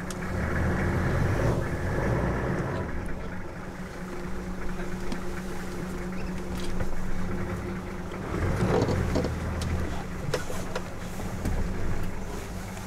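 A vehicle engine idling with a steady hum while lions feed on a buffalo carcass close by, with low rumbles and scattered sharp cracks and tearing from the feeding, busiest about nine seconds in.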